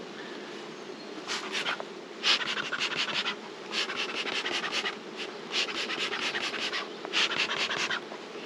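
Honeybees humming steadily around an opened hive, broken by about five rasping bursts of roughly a second each from the beekeeper's smoker and hive tool at work.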